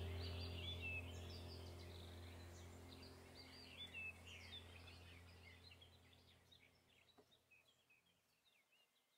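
Birds chirping and calling over a steady low hum, the whole gradually fading out to near silence.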